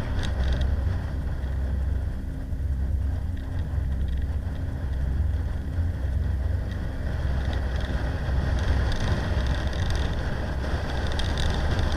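Wind rumbling over the microphone of a camera riding on a bicycle going quickly downhill, mixed with road noise. It is a steady low rumble.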